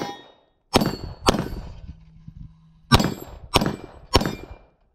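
Five 9mm pistol shots from a Smith & Wesson M&P 2.0 5-inch: a pair about half a second apart near one second in, then three evenly spaced shots about 0.6 s apart from three seconds in. Steel plate targets ring with a clang after the hits.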